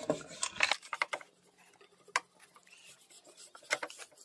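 Scattered light clicks and clinks of hands and tools working on a washing machine's clutch-assembly base, with a few sharper knocks about half a second, one second, two seconds and near four seconds in.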